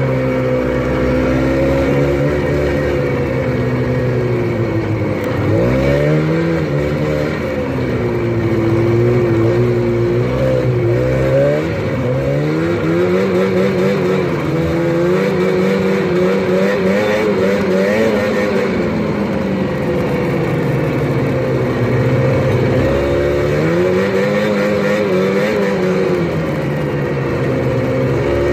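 Snowmobile engine running under way, its pitch rising and falling over and over with the throttle, climbing sharply several times as the rider opens it up.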